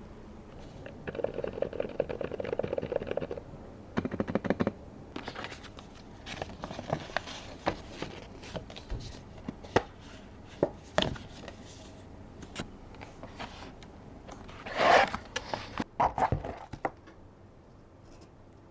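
A keyboard's packaging being opened and handled during unboxing: scraping and rustling, with scattered clicks and knocks. There is a longer rustle about a second in and a louder rustling burst a few seconds before the end.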